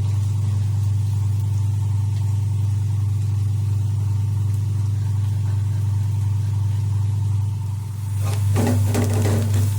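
A steady low hum like a running motor. About 8 seconds in, a utensil starts scraping and clinking in a pan.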